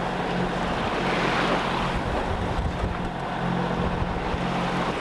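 Sailboat's engine running with a steady low hum while under way, with water rushing along the hull and wind on the microphone; the rush swells briefly about a second and a half in.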